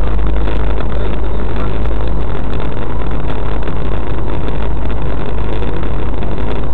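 Steady engine and road noise inside a moving car, picked up by a dashcam's microphone, with a heavy low rumble and no sudden events.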